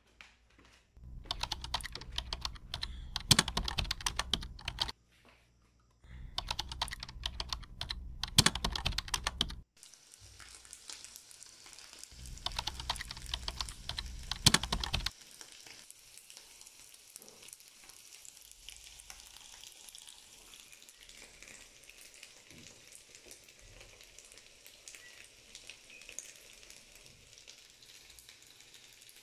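Hot dog sausages frying in oil in a pan: a busy sizzle full of crackles and pops, in three loud stretches, then a fainter steady hiss with light ticks.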